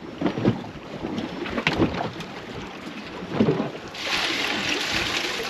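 A few knocks and clatters of gear being handled on a fishing boat, then, about four seconds in, a rushing splash of water for a couple of seconds as a small catfish is put into a bucket of water that keeps the catch alive.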